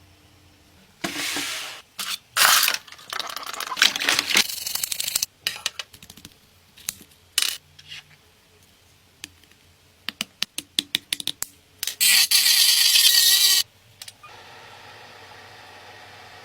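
Workshop tool sounds: several bursts of hissing, scraping noise, a quick run of sharp clicks, then a loud hiss lasting about a second and a half, followed by a steady low hum.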